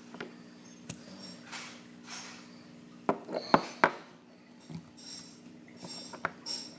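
Small hard parts of a homemade fidget spinner clicking and knocking together as the middle piece is pushed into place: scattered sharp knocks, the loudest about three and a half seconds in, with light handling noise between.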